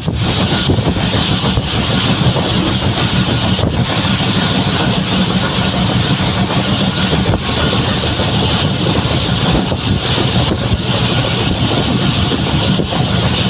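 Passenger train running at speed: a steady, loud rumble from the wheels on the rails, mixed with wind rushing over the microphone.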